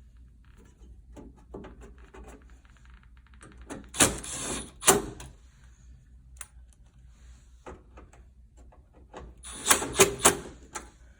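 A PTAC unit's cover panel being handled and fitted back in place: two sharp knocks about four seconds in with a scrape between them, then a quick cluster of knocks near the end.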